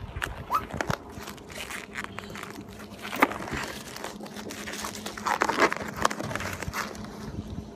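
Grey peelable coating being pulled off a car's roof and spoiler by hand: a continuous crackling and crinkling as the film lifts from the paint and bunches up, with louder tearing rasps about three seconds in and again a couple of seconds later.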